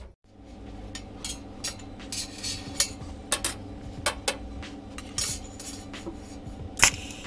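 Scattered light metallic clinks and taps, the loudest near the end, as a TIG torch and filler rod are set against a stainless steel exhaust pipe before welding. A steady hum runs underneath.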